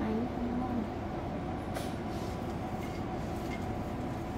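Steady low hum with a couple of faint taps of a spoon stirring split mung beans in a steel pot.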